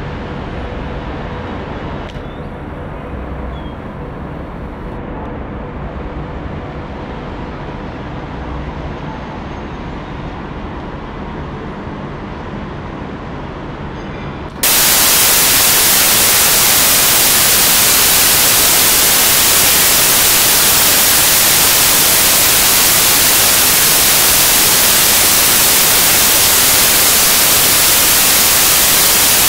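Distant city traffic heard as a steady low rumble from high up. About halfway through it cuts abruptly to a loud, even hiss of static that carries on to the end.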